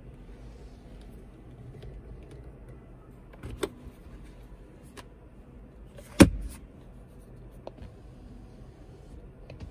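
Plastic centre-console lids and switches of a 2021 Hyundai Santa Fe being handled: a couple of clicks about three and a half seconds in, then one sharp, loud snap about six seconds in, then lighter clicks, over a low steady rumble.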